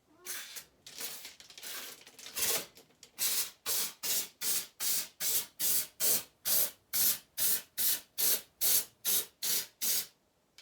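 Short hissing sprays from a nozzle. For the first three seconds they come irregularly; after that they settle into a steady rhythm of about two and a half sprays a second, then stop abruptly.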